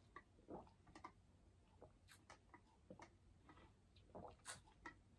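Near silence with faint, scattered soft clicks: water being sipped through a straw from a tumbler, with small mouth and swallowing sounds.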